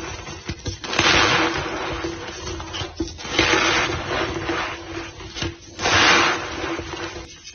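White gym chalk powder being squeezed and packed back into a block, squeaking and crunching in three long surges with sharp crackles between them.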